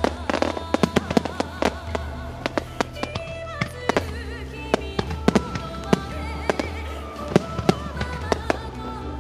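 A music starmine of aerial fireworks: shells launching and bursting in rapid succession, dozens of sharp bangs and crackles, several a second, over music from the show's loudspeakers.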